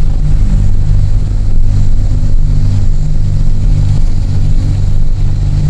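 A car driving slowly, its engine and road noise making a steady low rumble heard from inside the cabin.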